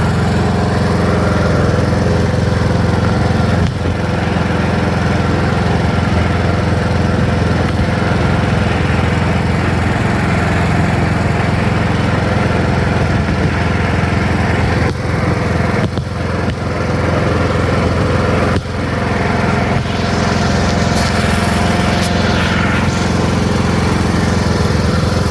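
Riding lawn mower's engine running steadily while the mower is driven along, with a few brief dips in level partway through.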